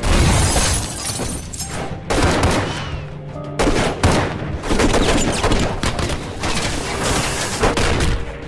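Gunfight sound effects from an action film: bursts of rapid gunshots and impacts, with action music underneath.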